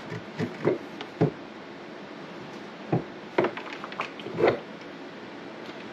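Several hard knocks and clunks as a desk's flip-up cord-port lid is pushed down against a monitor-arm mount and will not shut.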